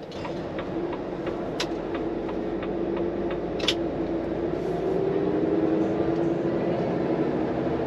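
Volvo FM 420 truck's 13-litre six-cylinder diesel engine pulling, heard from inside the cab, its tone slowly rising as the truck gathers speed. Two sharp clicks sound about one and a half and three and a half seconds in.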